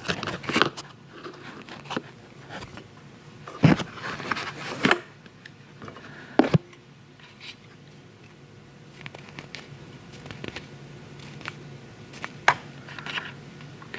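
Scattered sharp clicks and soft rustles of hands working at a fly-tying vise, twisting dubbing onto the thread, with three louder clicks spread through the stretch.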